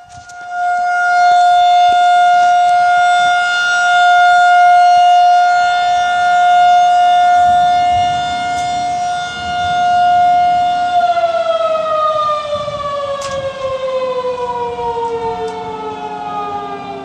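Federal Signal 2001-SRN rotating outdoor warning siren sounding a steady single tone, its loudness swelling and fading slowly as the horn turns. About eleven seconds in it winds down, the pitch falling steadily to the end.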